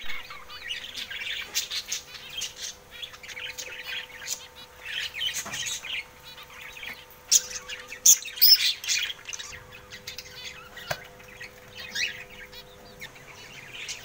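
Caged budgerigars chirping and chattering: many quick high calls overlapping, loudest about eight seconds in. A faint steady hum runs underneath.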